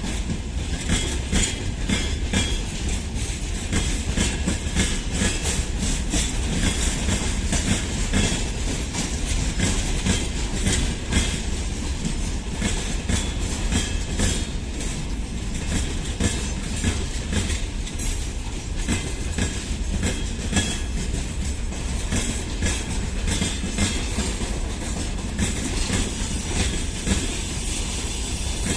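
Freight train rolling past, its wagon wheels clicking steadily over the rail joints with a low rumble underneath.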